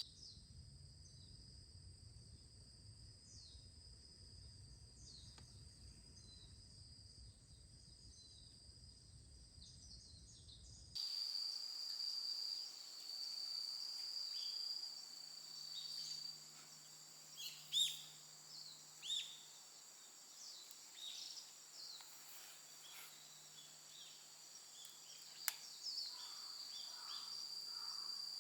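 Forest ambience: a steady high-pitched insect drone with birds chirping now and then, faint overall. A low rumble in the first part stops abruptly about eleven seconds in, where the sound jumps slightly louder, and a single sharp click comes near the end.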